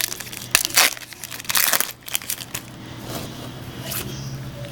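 Foil trading-card pack wrappers and cards being handled: crinkling and crackling in quick runs, busiest in the first couple of seconds, then a softer rustle.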